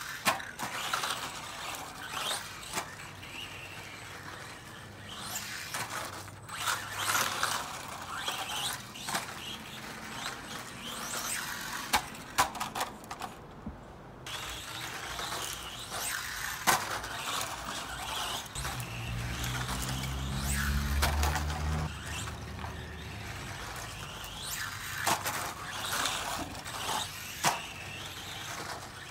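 Team Associated Reflex 14T, a small electric RC truck, driving over a dirt track: its motor and gears whine up and down with the throttle, broken by sharp clacks as it hits bumps and lands. A low drone from something else comes in about two-thirds of the way through.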